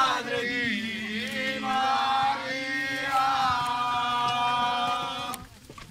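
Pilgrims' voices chanting a devotional hymn in long held notes; the singing breaks off near the end.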